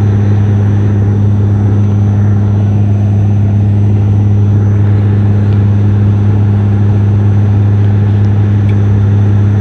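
Steady drone of a turboprop airliner heard from inside the cabin on descent to land: a deep, even propeller hum of unchanging pitch over a constant rush of air.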